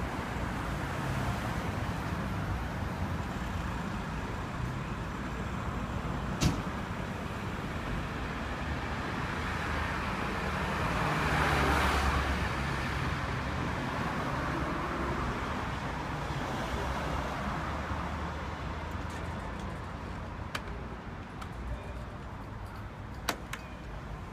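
Street traffic noise, with a passing vehicle swelling up and fading away about halfway through. A sharp click about six seconds in and a couple more near the end.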